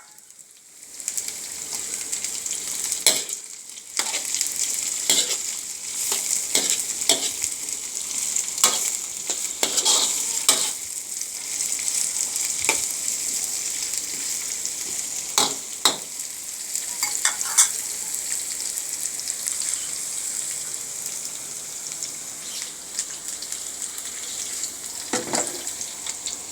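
Green beans and chilies frying in oil with the aromatics, sizzling steadily, with a spatula stirring and scraping against the pan every so often. The sizzle comes in about a second in.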